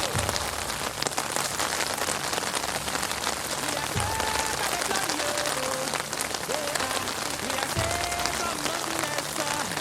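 Heavy rain pouring steadily onto street surfaces, a dense hiss of drops spattering.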